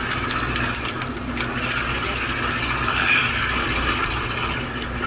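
Fishing boat's engine running at idle in a steady low hum, under a wash of wind and water noise with a few small clicks.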